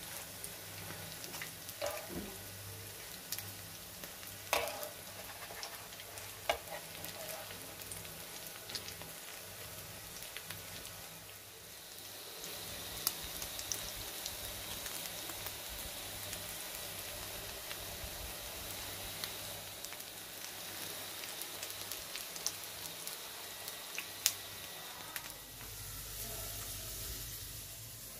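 Breaded chicken-and-bread patties shallow-frying in hot oil in a pan, sizzling steadily, the sizzle growing louder about twelve seconds in. Several sharp clinks of metal tongs against the pan as the patties are turned.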